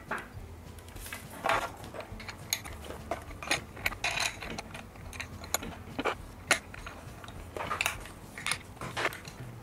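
Scattered light clicks, taps and a brief scrape of hands handling a guard rail board and its metal clamp bracket, the loosely fitted bracket parts knocking against each other.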